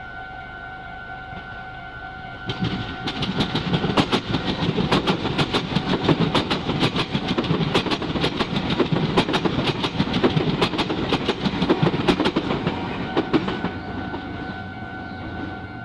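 Meitetsu train passing through a level crossing, its wheels clacking rapidly for about ten seconds. The crossing's warning signal sounds a steady two-note tone before the train arrives and after it has gone.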